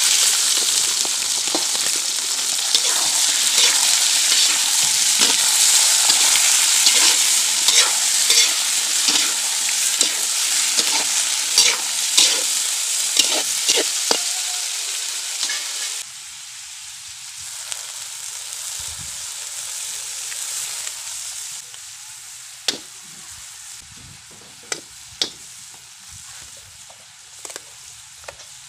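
Chicken livers sizzling loudly in hot oil in a metal wok, stirred with a metal spatula that scrapes and clicks against the pan. About halfway through the sizzle drops suddenly to a quieter hiss, with a few sharp spatula knocks near the end.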